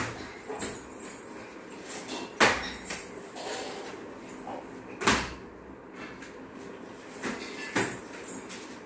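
Children's bare feet landing on cardboard squares laid on a tiled floor: irregular thumps and slaps as they hop from square to square, the loudest about two and a half and five seconds in.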